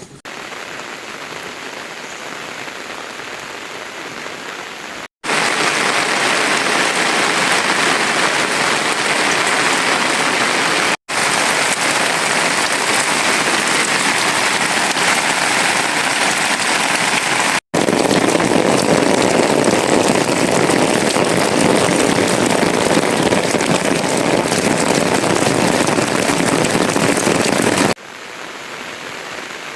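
Rain falling steadily, a dense, even hiss. It is quieter for the first five seconds, then louder, and cuts off abruptly for an instant three times, with a drop back to a quieter level near the end.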